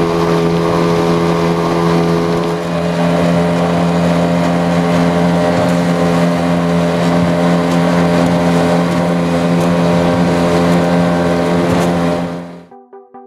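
Yamaha 9.9 hp two-stroke twin-cylinder outboard running steadily at a constant cruising speed, the boat under way. Near the end the engine sound cuts off abruptly and pulsing electronic music starts.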